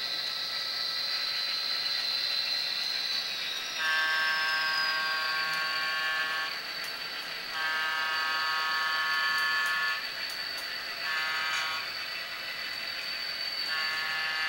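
Tsunami sound decoder in an HO scale diesel locomotive sounding its horn in the grade-crossing pattern: two long blasts, a short one, then a long one. All of it plays over a steady high-pitched whine.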